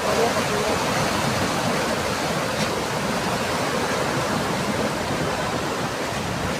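Flooded river rushing, a steady loud roar of fast water.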